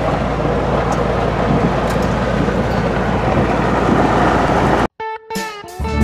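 Steady engine and road noise of a Jeep Wrangler Rubicon driving, heard from inside the cab. It cuts off abruptly near the end, and guitar music starts.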